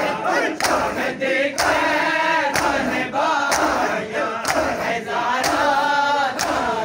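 A crowd of men chanting a noha in unison, with a sharp collective slap about once a second as they beat their chests together in matam.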